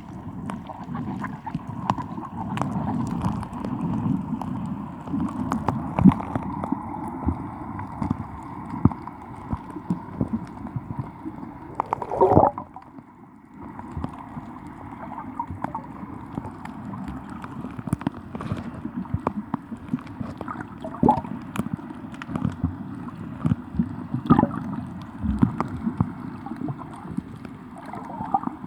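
Muffled water sloshing and gurgling around a camera in the sea, with frequent sharp clicks and knocks against the housing.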